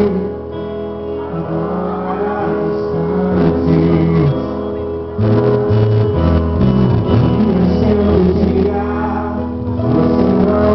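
Live band performance with a man singing lead vocals over guitar and drums. The music gets fuller and louder about five seconds in.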